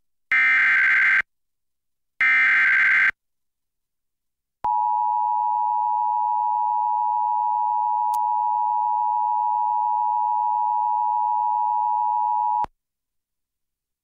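Emergency Alert System broadcast over FM radio: two short bursts of SAME header data, each a harsh digital warble about a second long, then the EAS two-tone attention signal held steady for about eight seconds and cut off sharply, announcing a severe thunderstorm warning.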